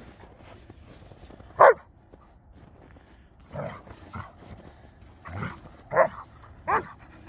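Husky-type dogs play-fighting, giving short barks and yips: one sharp loud bark about a second and a half in, then a handful of shorter, quieter ones toward the end.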